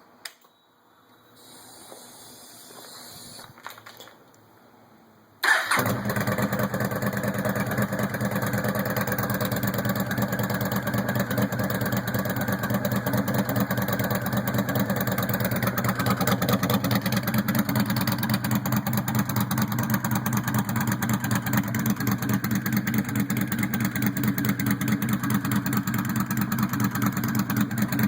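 Yamaha Stryker's V-twin, breathing through a Cobra Swept exhaust with the baffles removed, starting: a faint whir, then the engine catches about five seconds in and idles steadily, considerably louder than with the baffles in.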